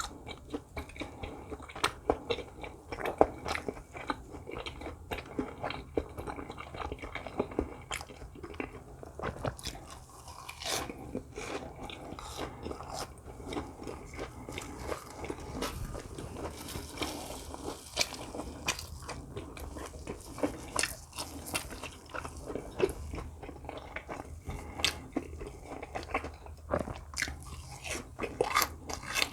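Close-miked eating: a person biting into and chewing fried snack food, with many short, irregular sharp clicks and smacks.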